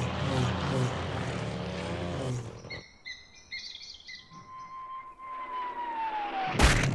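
Cartoon sound effects: a whirring, machine-like noise with a wavering pitch stops about two and a half seconds in. Short chirps follow, then a whistle that slides downward, cut off by a loud crash near the end.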